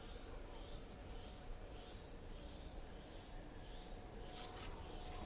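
Rhythmic rubbing, a hissy back-and-forth stroke repeating about twice a second.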